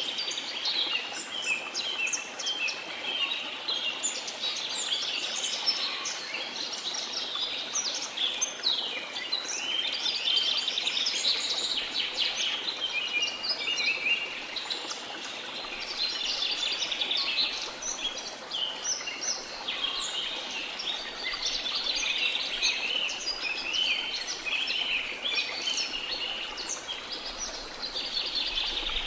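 A dense chorus of many tropical birds chirping, trilling and calling without pause, over a faint steady rush of a waterfall.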